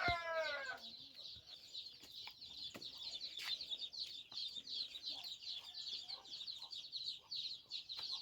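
Domestic chickens: a rooster's crow tails off in a falling note in the first second. After it comes a continuous chorus of rapid, high peeping from many chicks, with a few low hen clucks.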